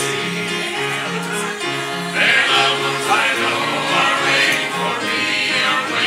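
Church music: a gospel-style song with held instrumental notes in a moving accompaniment and singing over it.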